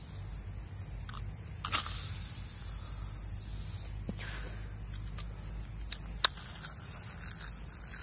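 Fishing rod and reel being cast and handled: a few sharp clicks, the loudest just under two seconds in and another just past six seconds, over a low steady rumble.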